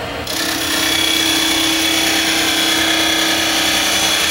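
Skew chisel taking a finishing cut on a spinning cocobolo piece on a wood lathe. A steady hiss of the cut over a low hum starts about a third of a second in and holds even.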